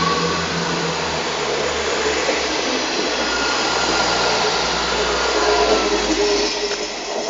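Renfe class 599 diesel multiple unit passing close by: a steady rush of wheel and rail noise over a low diesel engine drone, easing a little near the end as the train moves away.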